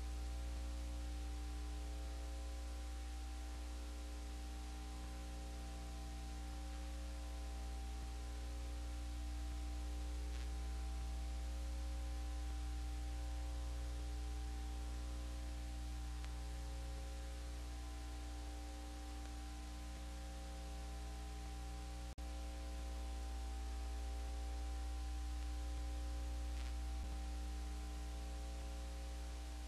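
Steady electrical hum with a constant hiss, one of its higher tones pulsing regularly; a single click about 22 seconds in.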